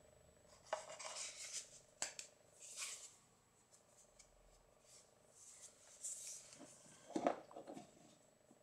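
Puukko knife being slid into its leather sheath and handled: faint scraping and leather rubbing in several short bouts, with a sharper knock about seven seconds in.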